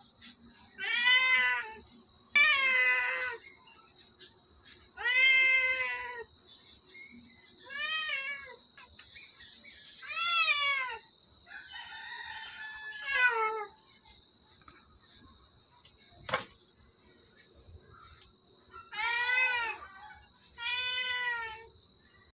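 Orange-and-white domestic cat meowing over and over, about eight loud meows a couple of seconds apart, each rising and then falling in pitch. A single sharp click comes about two-thirds of the way through.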